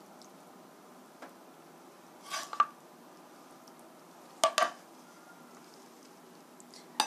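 A metal spoon and wooden spatula scooping saucy stir-fried chicken and cabbage from a pan onto a ceramic plate: a soft scrape with a clink about two and a half seconds in, two sharp clinks of the spoon on the dishes a little after four seconds, and another clink near the end.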